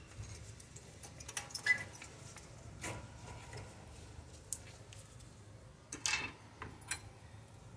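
Scattered light metal clicks and scrapes as a brake caliper is lifted off its pads and bracket and handled onto a wire hook, the clearest click about six seconds in.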